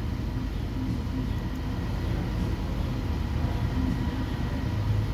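2021 Nissan Sentra's four-cylinder engine idling with a steady low hum, while a fuel-trim self-learn runs on it.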